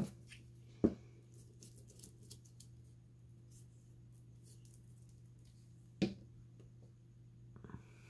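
Quiet handling of craft materials on a tabletop: faint light rustles and small clicks, with two sharp taps, one about a second in and one about six seconds in, over a steady low hum.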